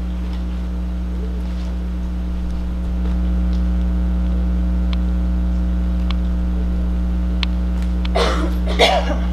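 Steady low electrical hum with a ladder of evenly spaced overtones, typical of mains hum in a sound system, getting a little louder about three seconds in. A few faint clicks in the middle and a short sound of a voice near the end.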